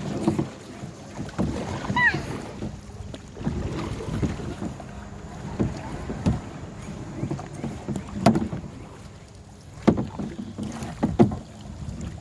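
Canoe paddling: paddles dipping and splashing in the water, with irregular knocks and thuds and wind on the microphone.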